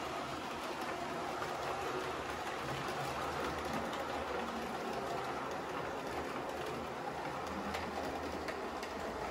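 H0-scale model steam locomotive and passenger coaches running along the track: a steady motor hum and wheel rumble with a few light clicks.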